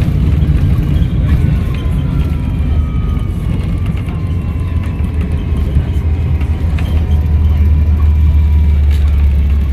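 Volvo B7RLE bus's diesel engine and Voith automatic driveline running under a heavy low rumble, with a high whistling whine that falls slowly in pitch over several seconds, typical of the turbo spooling down.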